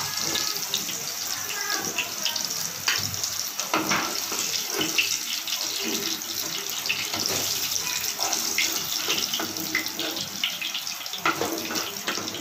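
Hot oil sizzling steadily in a frying pan around fried potato chunks, with a metal spoon scraping and knocking against the pan as the pieces are lifted out.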